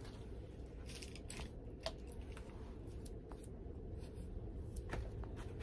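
Paintbrush dabbing and scraping acrylic paint in a plastic plate: a few faint, scattered clicks and scrapes over a steady low room hum.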